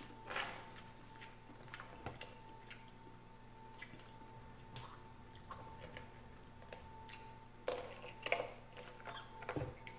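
Seafood being picked apart and eaten at close range: scattered soft clicks of mussel and crab shells with wet chewing, and a denser flurry of shell clicks near the end.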